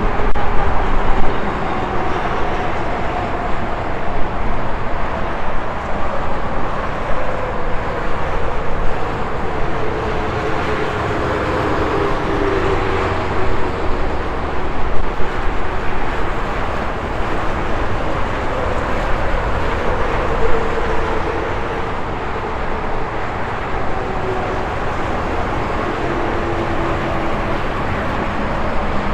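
Steady highway traffic: cars and trucks passing continuously with tyre and engine noise. Several passing vehicles give a slowly falling pitch as they go by.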